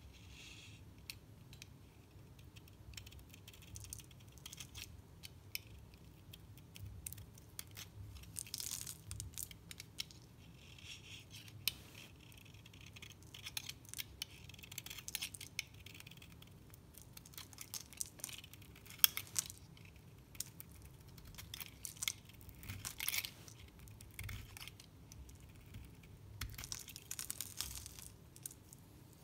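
Utility-knife blade shaving and scraping a dry bar of Fax soap, crisp crackling and snapping as flakes break off. The strokes come in irregular short scraping runs with sharp separate clicks between them.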